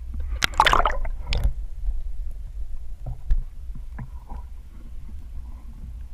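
Underwater camera housing in moving water: a steady low rumble with scattered sharp clicks and knocks, and a louder rustling burst about half a second in.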